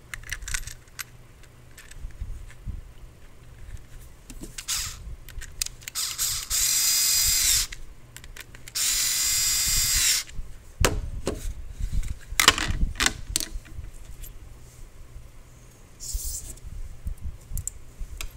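Small cordless electric screwdriver running in two steady bursts of about a second and a half each, driving screws into a Kydex holster. A run of sharp clicks and knocks follows as the holster and its screws are handled.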